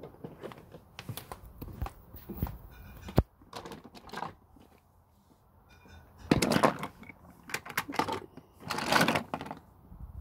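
Wooden toy trains and wooden track clicking and knocking as they are handled and pushed about on a wooden deck. There is a sharp knock about three seconds in, then two louder, longer bursts of handling noise later on.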